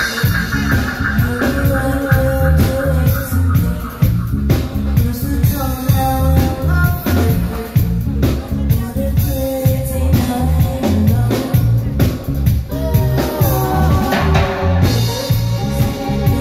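A live reggae band playing, with a heavy pulsing bass and drums under keyboards, and a woman singing in places.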